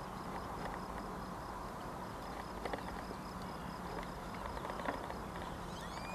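Steady open-air background noise with a faint steady hum, a fast high pulsing chirp, and scattered light clicks.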